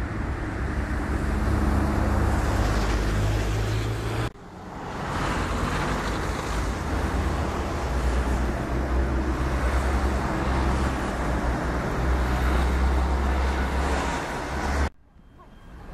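Steady outdoor background noise, a dense hiss over a strong low rumble, broken by two abrupt cuts: one about four seconds in, after which it swells back, and one near the end, after which it is much quieter.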